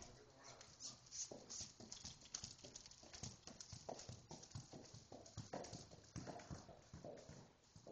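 Faint, steady hoof beats of a horse being ridden at a slow walk, its hooves clip-clopping on the barn aisle floor.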